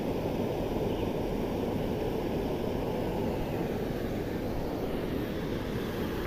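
Steady rushing of a shallow river flowing fast over rocks, low and even throughout.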